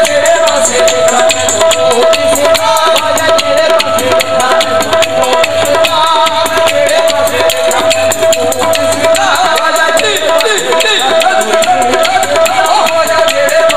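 Live music over a loudspeaker system: a singer's voice over fast, evenly repeated percussion strokes and a steady held tone underneath.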